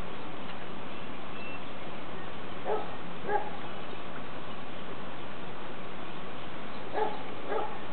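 Steady background hiss with four short pitched animal yelps, two about a third of the way in and two near the end.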